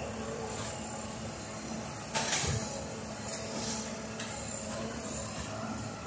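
Engine of a rail-mounted maintenance-of-way tie machine running steadily as it moves slowly along the track, with a sharp clank about two seconds in.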